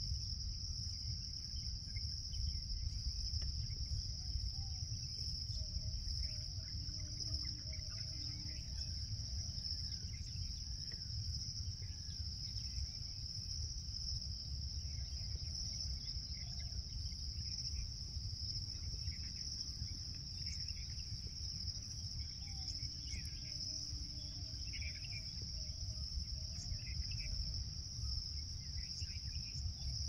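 Steady high-pitched insect chorus, continuous and unchanging, over a low rumble, with faint scattered bird chirps and calls now and then.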